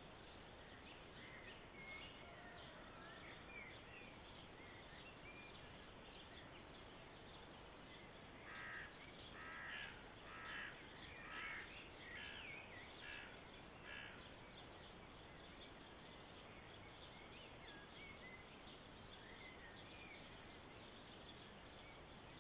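A bird calling faintly in a series of about seven calls, roughly one a second, over a steady hiss, with a few faint songbird chirps now and then.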